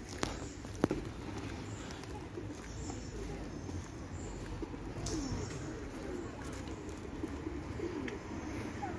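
Feral pigeons cooing over and over in short, low, rising-and-falling coos, with two sharp clicks in the first second.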